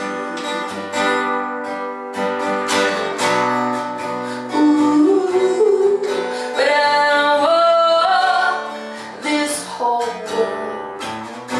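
Song with strummed acoustic guitar and a woman singing, her voice stepping up in pitch about halfway through.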